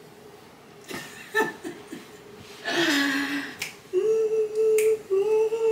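A woman's voice vocalizing without words: a breathy laugh-like burst, then short held sung or hummed notes, with a few sharp clicks in between.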